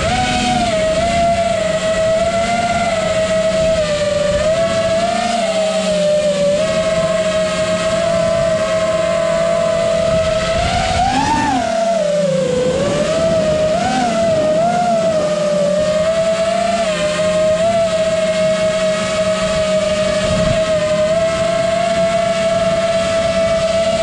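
FPV quadcopter's electric motors and propellers whining at a steady pitch that wavers with the throttle, rising briefly about eleven seconds in and dipping just after, over a rush of air noise.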